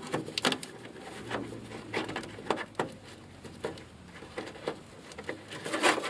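Irregular light clicks and knocks, about ten in six seconds, of hands handling metal parts of a Bryant gas furnace.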